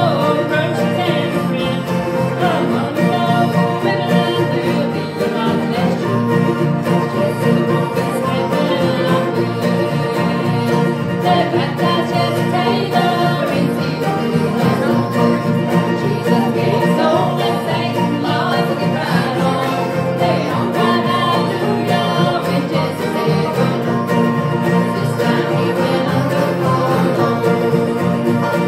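Live acoustic bluegrass band playing: several strummed acoustic guitars with banjo and mandolin, and voices singing along.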